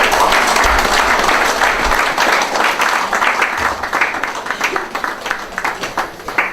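Congregation applauding: a dense burst of clapping that starts suddenly, then thins out into scattered single claps toward the end.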